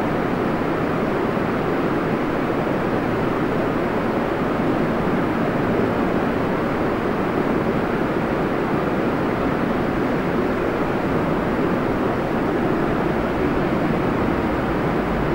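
Steady, unchanging background noise of an underground subway station with no train at the platform, with no rise or fall and no single events.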